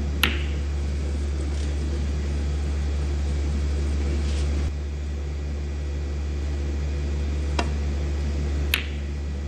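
Sharp clicks of snooker balls being struck, one just after the start and two more near the end, over a steady low hum.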